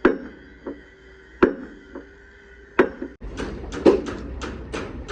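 Hand-hammer blows: heavy strikes about every second and a half with lighter taps between them. About three seconds in, the sound changes abruptly to a quicker run of lighter taps over a low hum.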